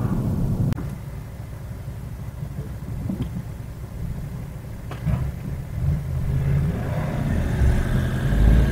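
Car interior sound picked up by a dash cam's built-in microphone: low engine and road rumble. It drops suddenly to a quieter rumble under a second in, then grows louder again over the last few seconds as traffic moves off.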